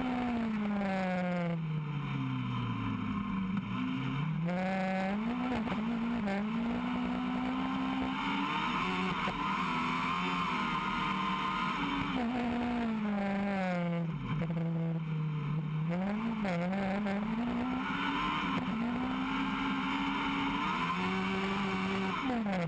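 Single-seat hill-climb race car's engine heard from the open cockpit, its pitch repeatedly sinking as the car slows and then climbing sharply again under acceleration, over wind and road noise. It falls steadily through the first few seconds, climbs about four seconds in, and swings down and up several more times before settling on a steadier note near the end.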